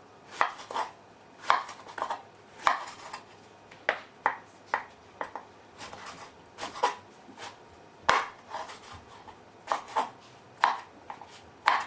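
Kitchen knife slicing a large purple eggplant on a cutting board: a run of irregular sharp knocks as the blade goes through and strikes the board, about two a second with short pauses.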